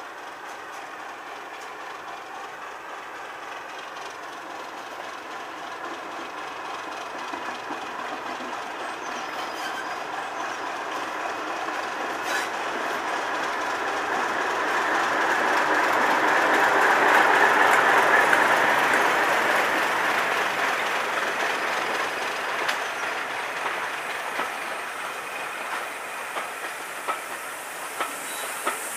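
Class 31 diesel locomotive's English Electric V12 engine pulling a train of coaches past, growing louder to a peak about two-thirds of the way through and then easing. The wheels click over rail joints as the carriages roll by, and a hiss of steam comes in at the very end from the steam locomotive at the rear.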